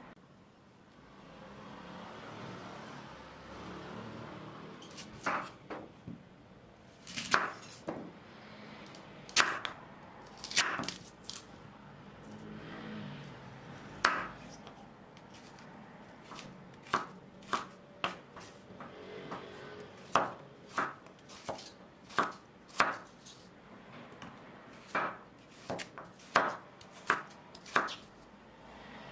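Chef's knife slicing fresh radishes on a wooden cutting board: each cut ends in a sharp knock of the blade on the board. The cuts start about five seconds in and come at an uneven pace, roughly one a second.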